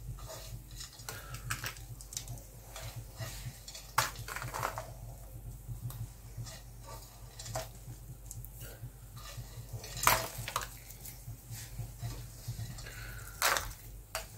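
Kitchenware clinking: a few scattered sharp clinks and knocks, the loudest about ten seconds in, over a low steady hum.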